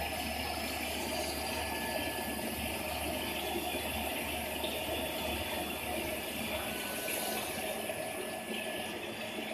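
Induction hardening machine tool quenching a small shaft: a steady rush of quench water spraying in the tank, with thin steady whine tones over it. A low hum under it stops about seven seconds in.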